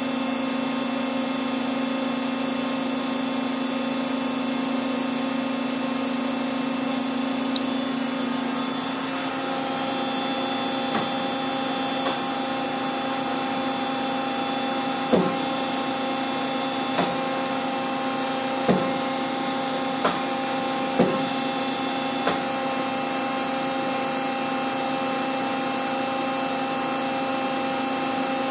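Steady machine hum with several whining tones; the mix of tones changes about a third of the way in. A scattering of short, sharp knocks comes in the middle, the loudest three a few seconds apart.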